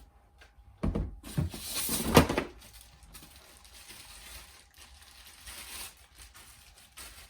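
Box contents being handled and taken out: a run of knocks and rustling about a second in, loudest about two seconds in, then quieter handling noises.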